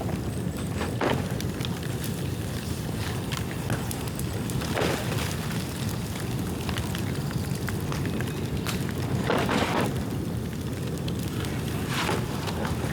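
Bamboo bonfire burning: a steady low rush of flames with many sharp crackles and four louder brief bursts as the burning bamboo pops. The bamboo is wet from rain but burning fiercely.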